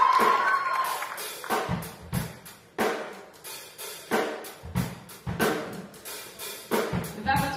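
Rock drum kit played mostly on its own: a slow, steady beat of bass drum and snare hits with cymbal, each stroke ringing out, as a sustained band chord dies away at the start.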